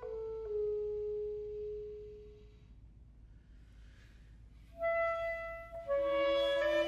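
Solo clarinet holding a long note that steps down slightly and fades away, followed by a pause of about two seconds. The clarinet then starts a new phrase, and the string orchestra comes in near the end.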